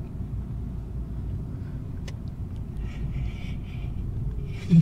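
Car engine and road noise heard from inside the cabin while driving, a steady low rumble. A brief loud thump comes near the end.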